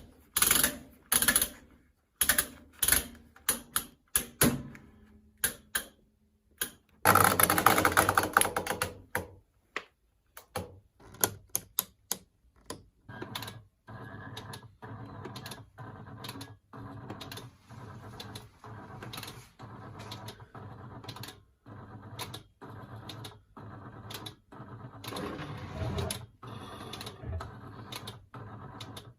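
Program dials of old washing machines being turned by hand, clicking through their positions, with a fast, loud run of clicks as one dial is spun quickly. Later a timer mechanism ticks regularly about once a second over a low hum as it steps round on its own.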